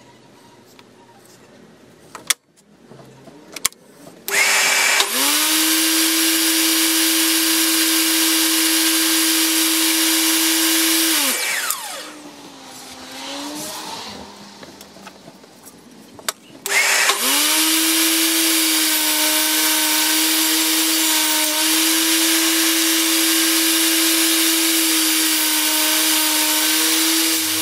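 DeWalt DWE7492 10-inch table saw's motor starting with a rising whine, running steadily for about seven seconds, then winding down with a falling pitch. A few seconds later it starts again and runs for about ten seconds, its pitch dipping slightly a few times as wood is fed through, and is switched off near the end. A couple of light knocks come before the first start.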